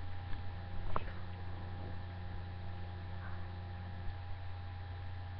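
Steady electrical mains hum in the recording, with a single sharp click about a second in.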